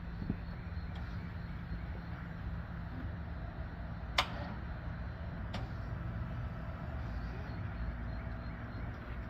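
Two sharp clicks about a second and a half apart over a steady low hum.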